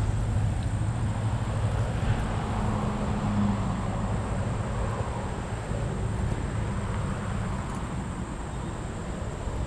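Steady low engine hum over a noisy background.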